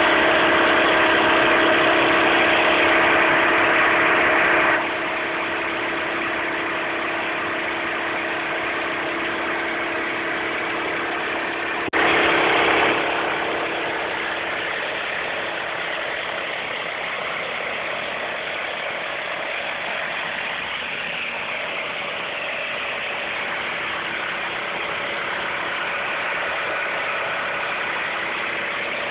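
Petrol-driven pressure washer running steadily: a steady engine drone under the hiss of the high-pressure jet striking a hard court surface. The sound drops in level about five seconds in, swells again briefly around twelve seconds in with a click, then settles.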